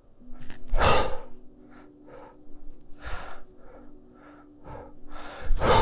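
A man breathing hard while doing kettlebell push presses, his breath timed to the lifts. There is a sharp, forceful breath about a second in and another near the end, with quick, short breaths between.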